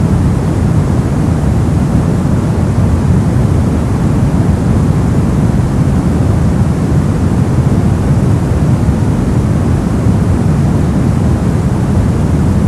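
Brown noise: a steady, deep rumbling hiss, strongest in the bass and fading toward the treble, with no change throughout.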